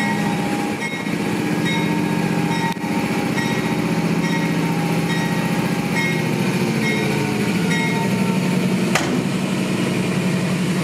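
Amtrak diesel-electric locomotive running at low speed, its diesel engine droning steadily under a bell ringing about once every second. Two sharp knocks stand out, one about three seconds in and one near the end.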